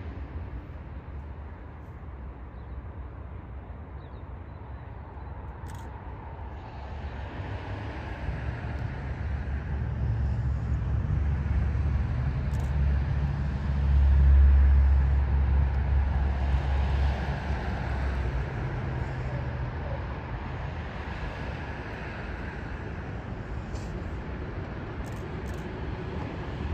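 Low rumble of a passing vehicle, building to a peak about halfway through and fading away.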